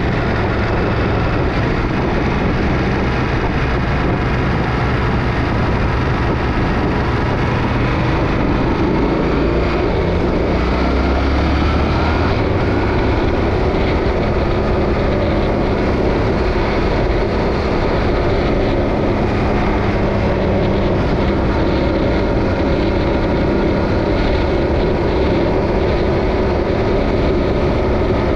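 Yamaha Ténéré 700's parallel-twin engine running at highway speed under a steady rush of wind and road noise; the engine note changes about ten to twelve seconds in.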